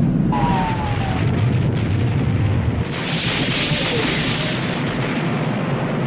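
Bomb explosion sound effect: a deep rumbling blast with a short falling whistle near the start, then a loud hiss from about three seconds in.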